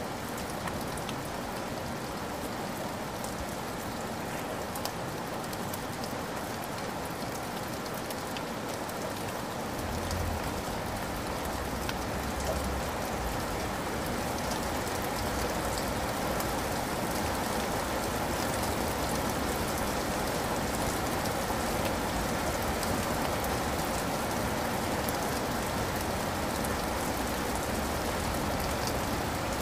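Steady rain falling, an even hiss, with a low rumble joining about ten seconds in.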